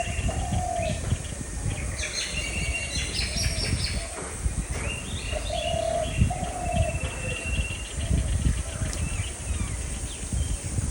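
Birds calling: a low two-note cooing call comes twice, about five seconds apart, among clusters of high, quick chirps from smaller birds.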